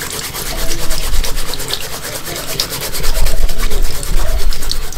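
An aluminium mess tin being scrubbed hard with a metal-mesh cleaning cloth, in rapid rasping back-and-forth strokes that grow louder in the second half. The cloth is lifting grime baked on over years, and it is coming off.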